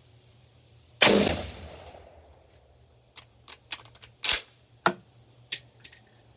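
A single shotgun shot from a handloaded Lee Drive Key slug; the report dies away over about a second. Several sharp clacks follow, a couple of seconds later.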